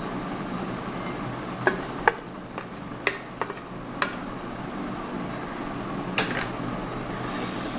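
Plastic tub knocked against the rim of a glass mixing bowl as powdered mix is shaken out: a handful of short, sharp clicks, then another clink a little after six seconds as a plastic spatula is lifted from the bowl. A steady low hum runs underneath.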